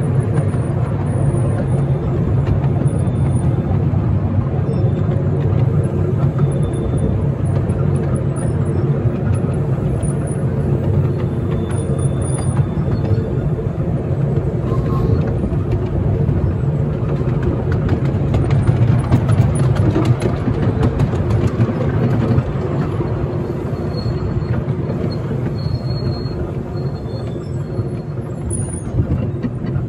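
A 10¼ inch gauge miniature railway train running, with a steady rumble of its wheels on the rails heard from an open carriage. It eases off slightly near the end.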